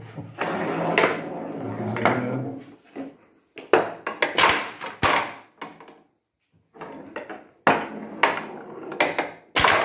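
A steady low hum for about the first two seconds, then a run of sharp clacks from a homemade pinball machine's flippers, their 30 V coils switched by relays, with a steel pinball knocking against them.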